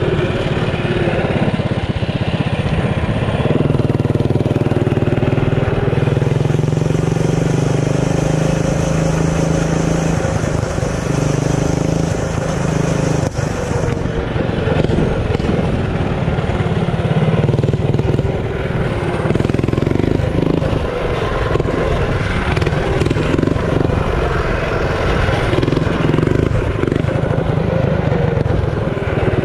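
Performance mini bike's small single-cylinder engine running as it is ridden. It holds a steady pitch for several seconds, drops off about halfway through, then revs up and down with the throttle.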